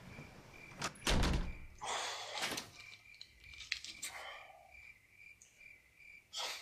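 A door banging shut with a heavy thump about a second in, followed by rustling and a few lighter knocks, over a faint, evenly repeating high chirp.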